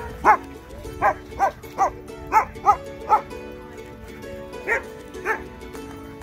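A dog barking, seven quick barks and then two more a little later, over background music with steady held tones.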